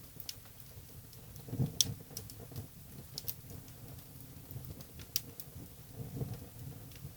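Wood logs burning in a fireplace: a low, steady rush of flame with scattered sharp crackles and pops from the burning wood, the loudest pop about two seconds in.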